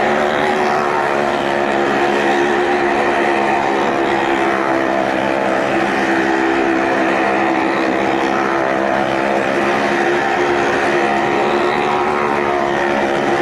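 Engines of several Maruti cars and a motorcycle running together at steady high revs as they circle the wall of a well of death: one continuous drone that holds its pitch.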